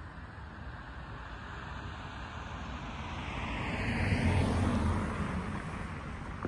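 A car passing close by: tyre and engine noise grows louder, peaks about four seconds in, then fades as it drives off toward the tracks.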